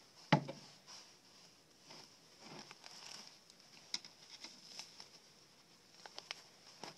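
Handling and cutting a pheasant carcass: one sharp snap about a third of a second in, then soft rustling and a few small clicks, several close together near the end, over a steady faint high hiss.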